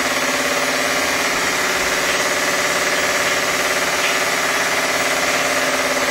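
Electrically heated model steam engine running fast and steady, with a rapid, even beat, driving a small generator off its flywheel.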